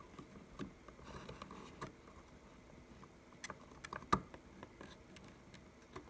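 Faint, scattered clicks and taps of a SO-DIMM RAM module being lined up and pushed into its socket on a mid-2017 iMac's logic board, with one sharper click about four seconds in.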